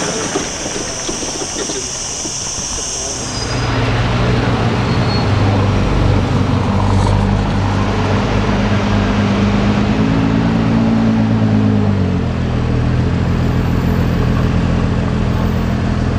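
A car engine, noisy at first, then running at a steady, even note from about three and a half seconds in. Around ten seconds a higher note joins for about two seconds, then drops back.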